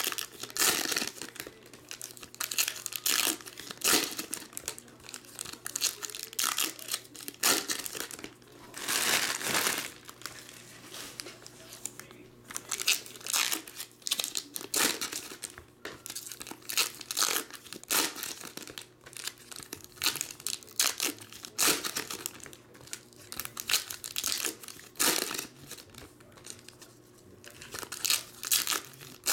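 Foil trading-card pack wrappers crinkling and tearing as the packs are ripped open by hand, in quick irregular bursts throughout.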